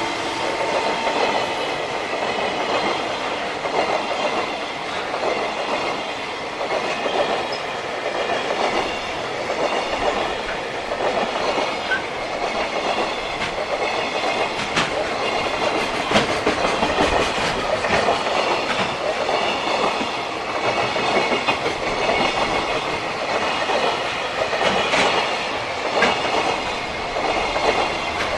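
Freight train wagons rolling steadily past, wheels clattering over the rail joints, with a thin high-pitched ringing from the wheels and rails.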